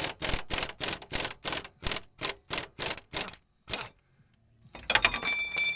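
Impact wrench hammering in quick repeated bursts, about four a second, turning the forcing screw of a bushing puller to press out an upper control arm bushing; it stops about four seconds in. A softer hiss with faint thin tones follows near the end.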